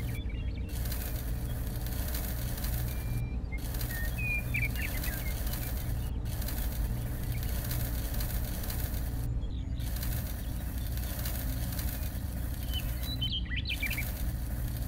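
Birds chirping now and then over a steady low rumble and hiss, with a few short chirps near the middle and again near the end.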